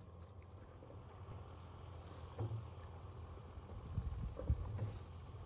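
Low rumble of wind on the microphone, with a few soft low thumps in the second half.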